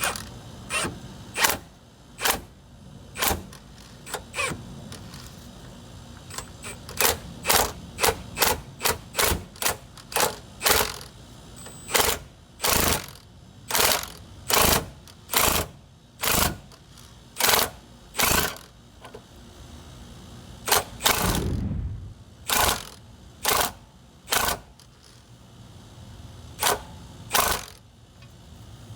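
Impact gun driving a car jack, run in many short hammering bursts with pauses between, and one longer run about three-quarters of the way through, as the jack lifts the car.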